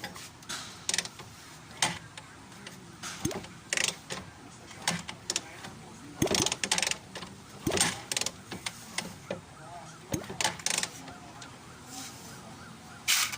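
Honda TMX125 Alpha's kickstarter being kicked over and over, the ratchet and gears clacking and the engine turning against compression without starting. The kick is firm again, a sign that compression has been restored by the top overhaul.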